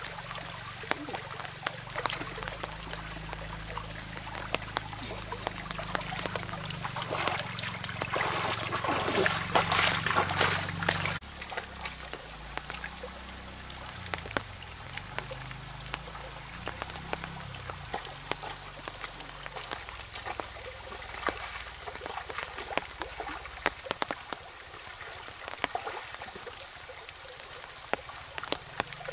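Shallow stream trickling over stones, with small splashes and knocks as hands search through the water and stones. The splashing grows louder for a few seconds and cuts off suddenly about eleven seconds in, leaving quieter running water with scattered splashes.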